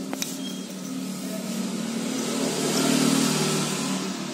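A motor vehicle passing by: its engine noise swells to a peak about three seconds in and then fades, over a steady low hum. A couple of light clicks right at the start.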